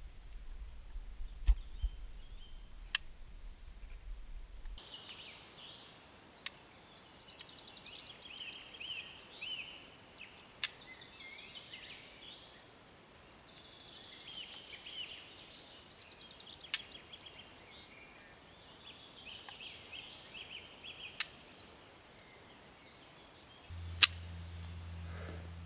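Small birds chirping and twittering repeatedly, with a sharp click every four to six seconds. A low steady rumble is heard at the start, stops about five seconds in and returns near the end.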